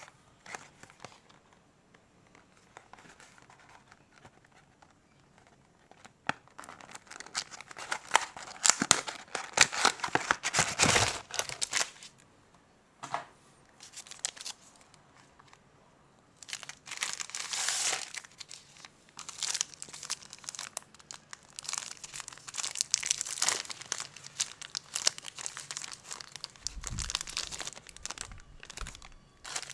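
Crinkling and tearing of plastic snack wrappers: individually wrapped Kinder Happy Hippo bars are handled, and a biscuit-and-caramel chocolate bar's wrapper is torn open. The crinkling comes in bursts, starting about six seconds in, with a dull bump near the end.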